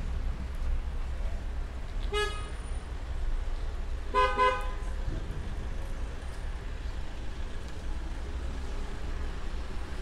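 A car horn sounds twice: a short toot about two seconds in, then a slightly longer one about two seconds later. Steady street background noise runs underneath.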